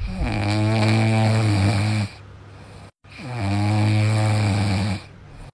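Bulldog puppy snoring in its sleep: two long, deep snores of about two seconds each, with a quieter breath between them.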